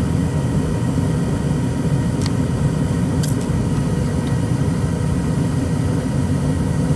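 ICP gas furnace running with its burners lit: a steady, low, even running noise from the burner flames and fans, with a couple of faint ticks.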